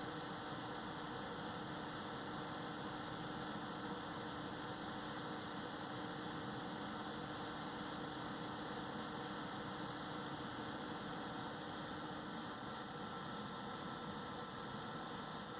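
AMD Wraith Spire CPU cooler fan running with a steady hum and a higher steady whine. This is the strange noise the owner reports from the cooler when the BIOS fan setting is between 50 and 90 percent, which the owner takes for a fault.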